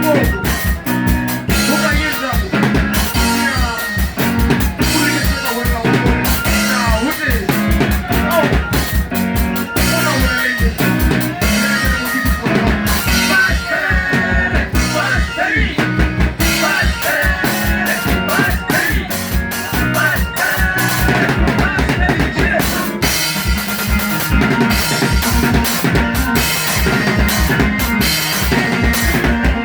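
Band music with a steady drum beat and melodic lines over it.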